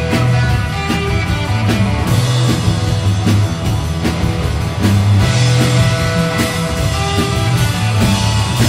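Live psychedelic rock band playing: guitar over a steady drum beat with low bass notes.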